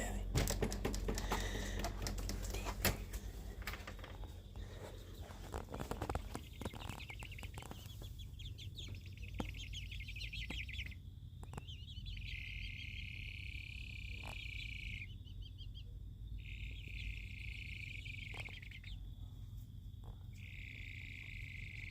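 Baby chickens' soft sleepy trilling, the sound that gets called chickens snoring. After about six seconds of scattered clicks, fast high ticking trills set in. Then come three long, steady high trills of two to three seconds each.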